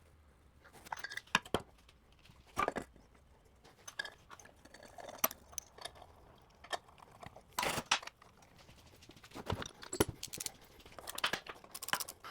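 Small metal pump parts and tools being handled on a workbench: irregular clicks, clinks and light scrapes, some with a brief metallic ring, a few strong ones clustering around the middle and near the end.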